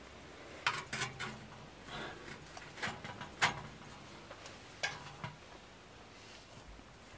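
Sheet-metal stovepipe sections clanking and scraping as they are fitted together: a string of separate sharp metallic knocks, the loudest about three and a half seconds in.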